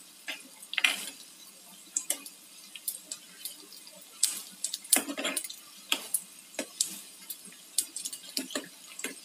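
Steel slotted spoon clinking and scraping against a frying pan in irregular strokes as lauki koftas are gently turned in hot oil, over the faint steady sizzle of deep-frying.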